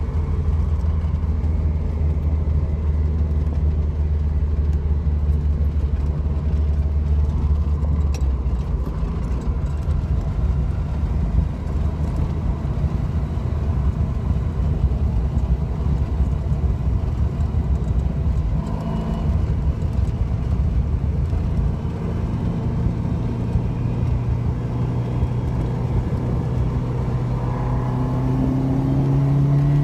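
Ferrari sports car's engine and road noise heard from inside the cabin while driving: a steady drone that rises in pitch near the end as the car accelerates.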